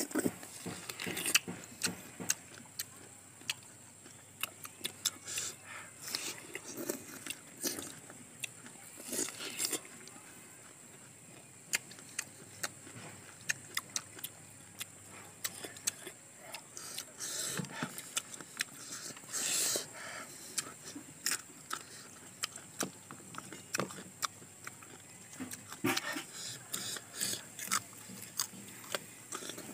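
Close-up bites and wet chewing of fresh star fruit by two people: a long run of sharp crunches and clicks, bunched in some stretches and sparse in others.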